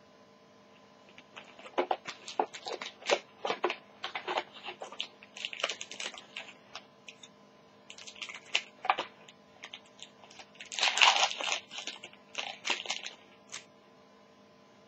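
Foil trading-card pack wrapper crinkling and tearing under the hands, in a string of sharp crackles that is loudest about eleven seconds in.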